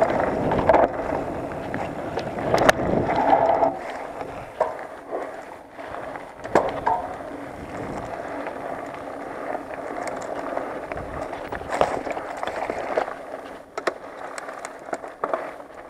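Mountain bike descending a dry, stony dirt singletrack: a steady rumble of tyres rolling over the dirt, with sharp knocks and rattles as the bike hits bumps, loudest in the first few seconds.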